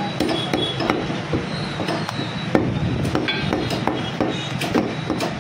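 Butcher's cleaver chopping mutton: repeated sharp chops at an uneven pace, a few a second.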